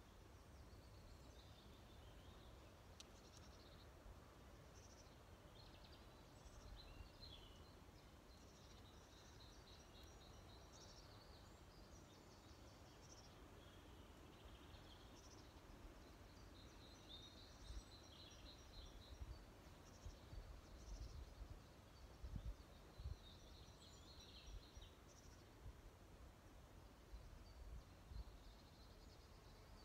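Faint woodland birdsong: small birds chirping and trilling in short phrases throughout, over a low, steady rumble with a few soft low bumps in the second half.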